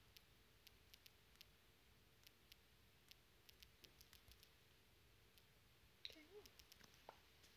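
Faint, irregular clicks of typing on a phone's touchscreen keyboard, one letter at a time, with a slightly louder cluster and a short wavering sound about six seconds in.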